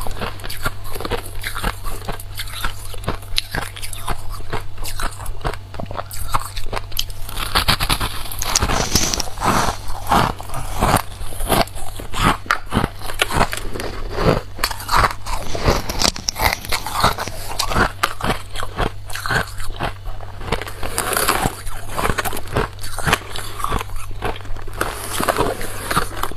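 Close-up biting and chewing of soft, snow-like freezer frost: many crisp crunches in quick succession.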